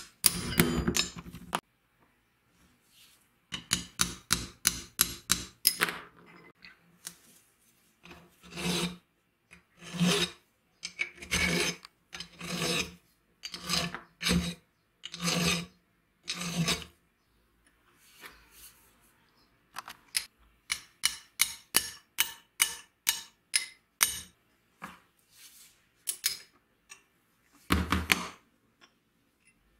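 Hand filing on rusty steel, in runs of quick short strokes and slower long strokes. Near the end comes a single knock as a punch is set against a pivot pin.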